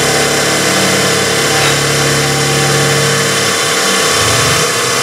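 CNC milling machine running as a spot drill chamfers the flutes of an aluminium knob, with flood coolant splashing over the cut; a steady low hum shifts about three and a half seconds in.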